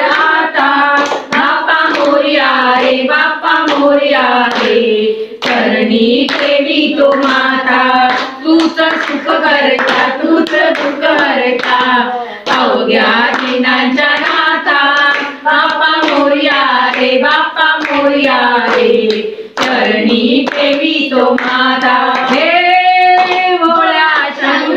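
A group of women singing a Marathi devotional song together, keeping time with hand-clapping.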